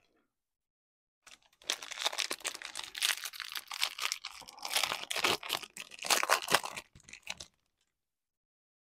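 The plastic-foil wrapper of a trading card pack being torn open and crinkled: a dense crackling that starts about a second and a half in and stops about six seconds later.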